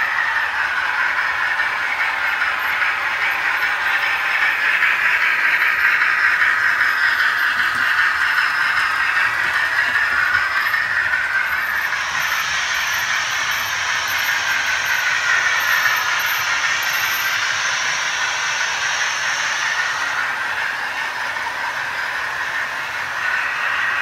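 OO gauge model trains running on the layout: a steady whirring of their electric motors and wheels on the track, wavering slowly in pitch. A higher hiss joins for about eight seconds in the second half.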